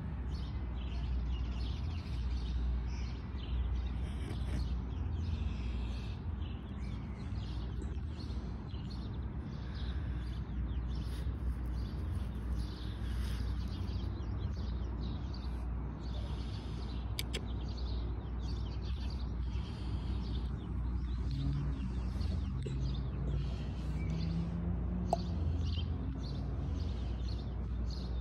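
Small birds chirping again and again over a steady low rumble of outdoor background noise.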